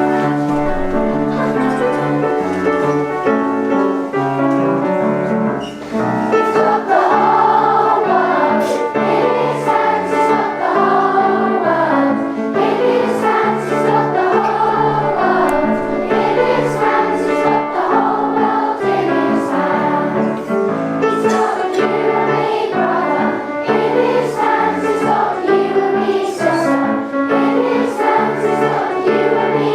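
Piano playing an introduction, then a group of children singing together over the piano accompaniment from about six seconds in.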